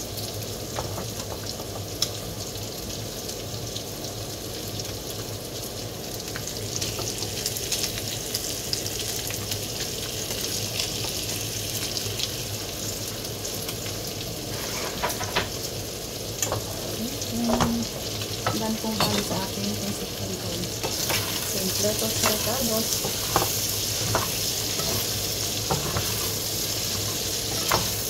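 Vegetables frying and sizzling in a non-stick wok on an electric stove, the sizzle growing louder as the freshly added ingredients heat up. From about halfway through, a spatula scrapes and knocks against the pan as the vegetables are stirred.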